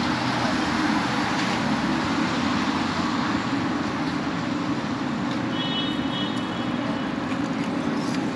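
Steady road traffic noise on a busy city street. About six seconds in, a brief high-pitched tone is heard over it.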